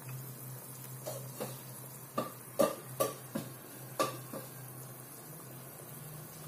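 A run of about eight light clinks and knocks against a cooking pot, the loudest in the middle, over a steady low hum.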